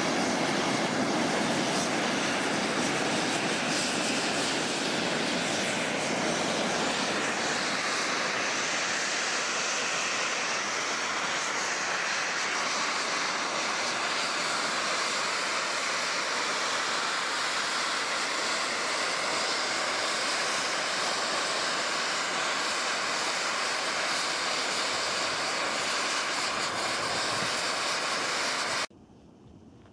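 Volcanic fumarole venting steam with a steady hiss. It cuts off abruptly about a second before the end.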